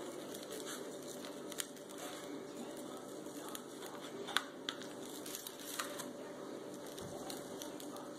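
Raw pork ribs and steaks coated in dry rub being handled and turned on an aluminium sheet pan: soft moist handling noises with a few sharp clicks and taps, the sharpest about four seconds in, over a low steady hum.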